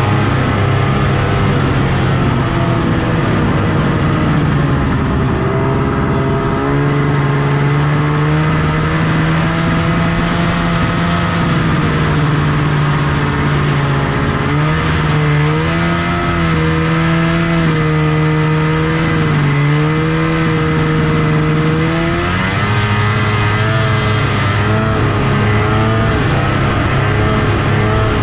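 1974 Arctic Cat Cheetah 340 snowmobile's Kawasaki 340 two-stroke engine running under way while breaking a trail through snow. The engine speed stays steady for stretches and shifts up and down several times, with a short dip about two-thirds of the way through.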